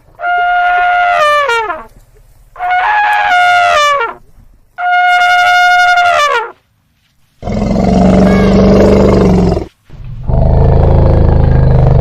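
Elephant trumpeting three times, each call held steady and then sliding down in pitch at its end. Then come two longer, deeper growling calls with a heavy low rumble.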